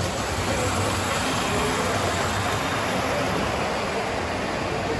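Steady rumble of O gauge model trains and layout mechanisms running, under the even background noise of a busy exhibit hall.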